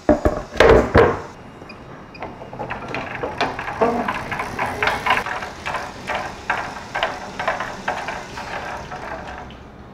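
A large 18 mm board panel flipped over and set down on a wooden worktable, with two loud knocks in the first second. Then it is slid and pushed into place against the table's stop pins: a run of irregular light knocks and scrapes, two or three a second.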